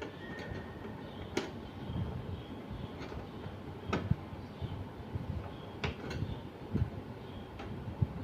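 Irregular sharp plastic clicks and soft knocks of a Canon LBP6000 laser printer's casing and parts being handled and worked loose during disassembly.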